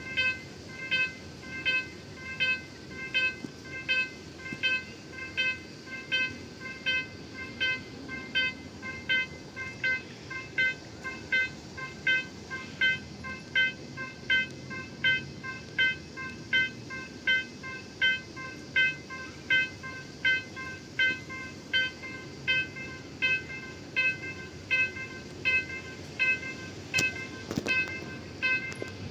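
Railway level-crossing warning bell ringing steadily, a short bright ding repeated about twice a second, the signal that a train is approaching.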